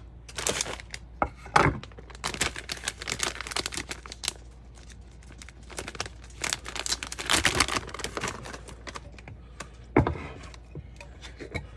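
Crinkling and rustling of packaging being handled, made up of many irregular crackles and clicks, with a sharper knock about ten seconds in.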